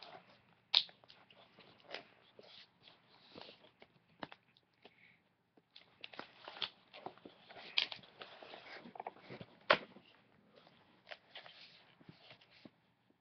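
Doll box packaging being handled, crinkling and rustling with irregular sharp clicks and snaps. The loudest snaps come about a second in, near eight seconds and near ten seconds.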